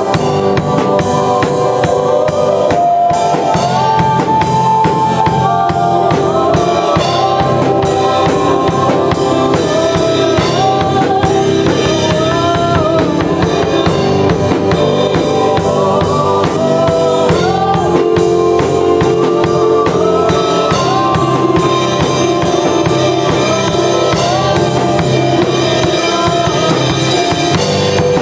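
Live worship band playing a song with a drum kit keeping a steady beat, and voices singing a melody over it.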